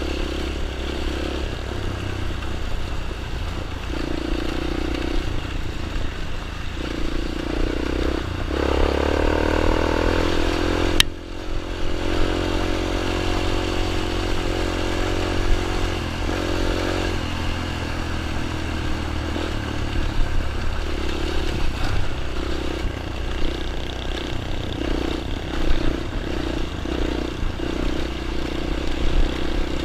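Small dirt bike engine running, louder and higher from about eight to seventeen seconds in, with a sharp click about eleven seconds in.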